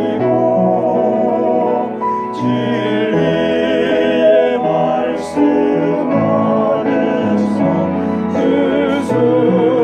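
A small vocal ensemble singing in harmony, holding long notes with vibrato, over piano accompaniment.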